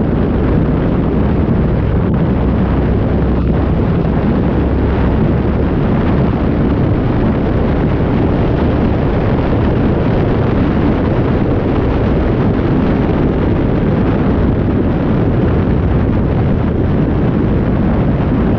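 Twin big-block V8 engines of a 29-foot Fountain step-hull powerboat running steadily at speed, a loud low rumble mixed with heavy wind buffeting on the microphone and rushing water from the wake.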